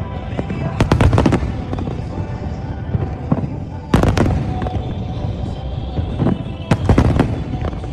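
Aerial fireworks bursting: clusters of sharp bangs about a second in, at four seconds and near seven seconds, over a continuous low rumble of distant shells.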